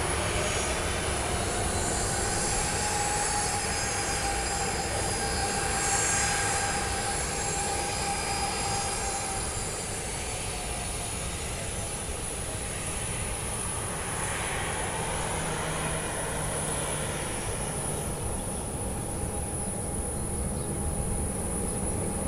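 Jet airliner engines at taxi idle: a steady whine over a low rumble, with one whining tone fading out about ten seconds in.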